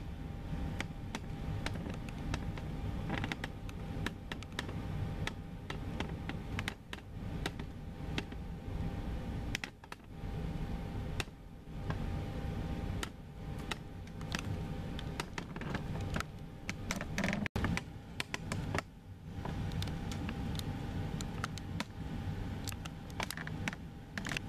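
Low muffled rumble, with many light clicks and taps close to the microphone scattered through it.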